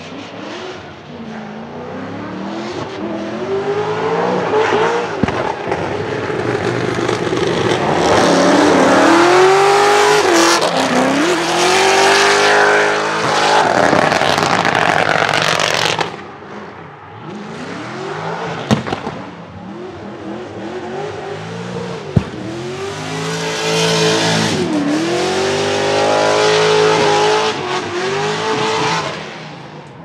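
A naturally aspirated LS7 V8 drift car revving hard and falling back over and over as it slides, with continuous tyre screech, in two loud passes. Two sharp exhaust pops stand out in the quieter stretch between them.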